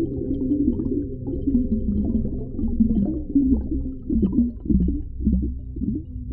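Muffled underwater ocean ambience: a steady deep rumble with low wavering tones, and a few short swooping sounds in the second half.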